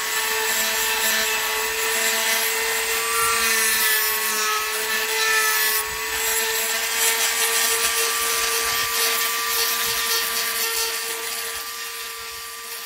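Small table-mounted router running at high speed with a steady whine, its bit cutting along the edge of a white plastic sheet.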